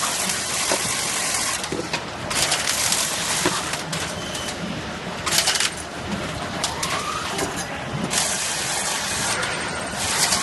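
Automatic carton sealing and strapping machine running, with bursts of hissing noise that come and go several times over a steady mechanical background.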